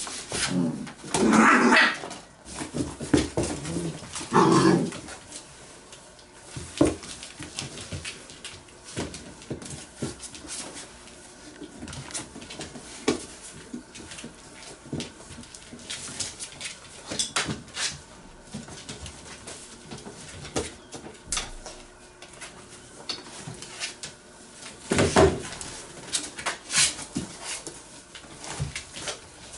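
Eight-week-old puppies at play, giving short barks and whimpers, with louder outbursts twice in the first five seconds and once near the end. Between them, many small clicks and knocks of paws and bodies on the floor and the cardboard box.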